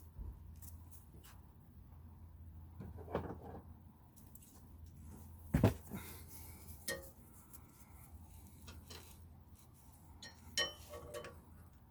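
Scattered knocks and clicks of metal hand tools and parts being handled and set down, with one sharp knock about five and a half seconds in and a few ringing metallic clinks near the end, over a steady low hum.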